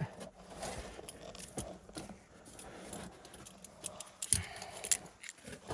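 Faint scattered clicks and light metallic rattles of small parts or tools being handled, with a few sharper clicks about four and five seconds in.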